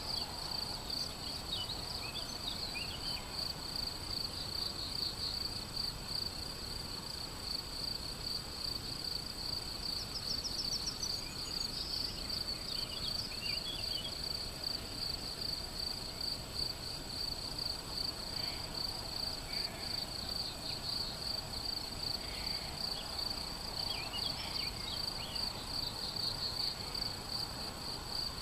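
Crickets chirping in a steady, high, pulsing trill, with scattered short bird calls over it.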